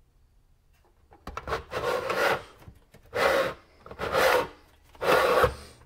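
A 3-inch metal vent pipe being pushed out through a metal wall thimble, scraping and rubbing in a series of short pushes starting about a second in.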